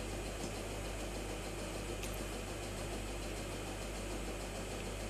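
Steady low hum and hiss of background room noise, with a faint click about two seconds in.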